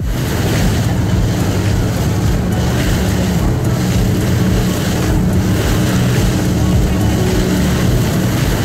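Tour boat's engine running steadily underway, a low hum under the rush of wind and water.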